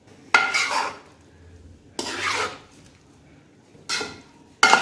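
Metal spoon scraping and stirring wet grated carrots in milk in an aluminium karahi: four scraping strokes about one to two seconds apart.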